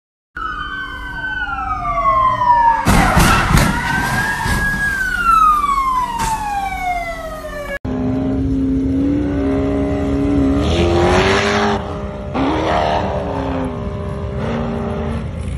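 A siren wailing, its pitch falling over several seconds and briefly swelling back up, with a burst of loud knocks about three seconds in. After an abrupt cut, a sand buggy's engine is running and revs up, its pitch rising and falling back about three seconds later.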